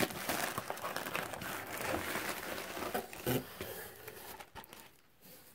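Plastic packaging crinkling and cardboard rustling as a book is lifted out of a shipping box, a dense run of small crackles that dies away near the end.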